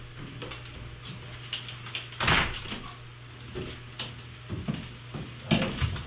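Wooden knocks and bumps as a plywood sheet is shifted against the ceiling joists overhead, with a loud knock about two seconds in and another near the end.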